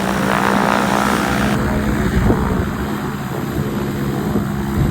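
Light propeller aircraft's engine running steadily, a constant hum with a broad rushing noise over it.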